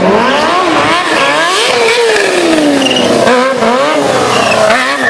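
Stunt motorcycle engine, loud, revving up and down over and over as the rider works the throttle through tricks.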